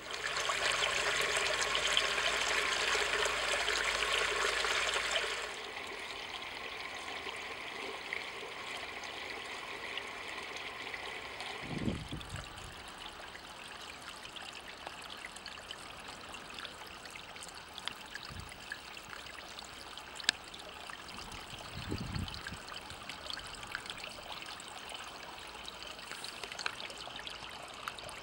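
Shallow water trickling and running over the ground, louder and brighter for about the first five seconds, then a softer steady trickle. Two dull low thumps come about midway and again later.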